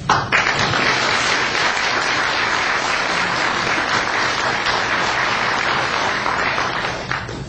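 Audience applauding: a dense round of hand-clapping that starts suddenly and dies away near the end.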